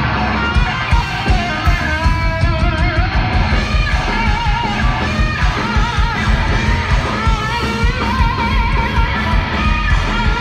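Live metal band playing loud, with distorted electric guitars over drums and a wavering high melody line on top.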